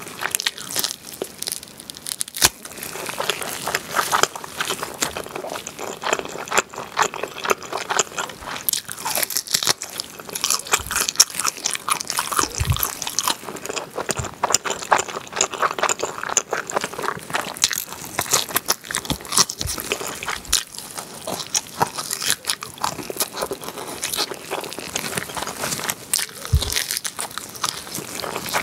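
Close-miked biting and chewing of glazed grilled pork back ribs: meat torn from the bone with a continuous run of short, sharp wet clicks and mouth smacks, and now and then a brief low thump.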